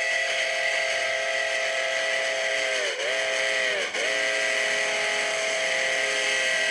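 Steam locomotive whistle blowing a long chord of several tones at once as K-36 No. 488 passes close by. The pitch sags and the sound dips briefly twice, about three and four seconds in.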